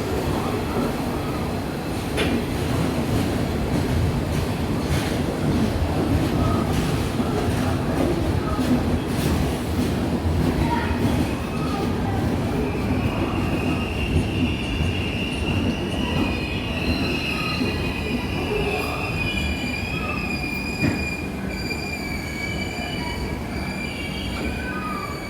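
Train coaches rolling slowly along the rails, rumbling with scattered clicks and knocks. From about halfway a high, wavering metallic squeal from the wheels sets in and holds.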